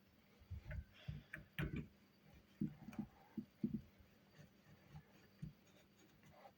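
Kitchen utensils being handled: a series of light, irregular knocks and clicks, bunched in two clusters in the first four seconds, then a few scattered taps.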